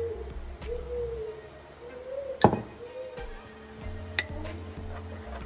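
Background music, with a sharp knock about halfway through and a ringing clink near the end as a metal spoon strikes the bowl while mixing spices into a paste.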